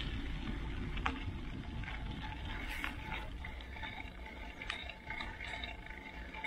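A mountain bike rolling along a dirt-and-gravel trail, making a steady crunching hiss from the tyres, with a few short ticks.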